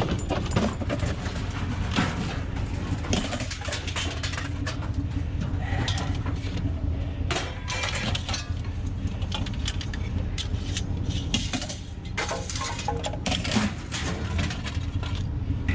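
Scrap metal being handled and pulled apart: scattered clicks, clinks and rattles of light metal, most of it aluminum, over a steady low rumble.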